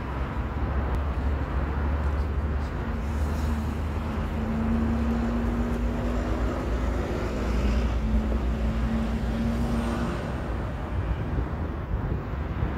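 Steady low rumble with a wash of noise over it, and a steady humming tone that comes in about four seconds in and fades out near the ten-second mark.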